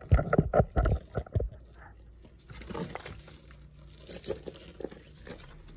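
Handling noise: a quick run of loud knocks and crunches in the first second and a half as the chainsaw and camera are moved about, then quieter rustling and small clicks.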